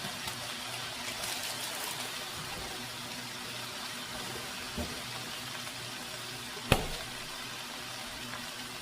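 Frozen pea pods and broccoli sizzling steadily in a hot stir-fry pan, with a sharp knock about two-thirds of the way through.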